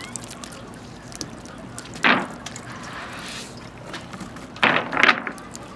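Wet cast net being shaken over a wooden dock, yellow perch, weed and water dropping and spattering onto the boards. There are three louder wet slaps, one about two seconds in and two close together near the end, over light pattering.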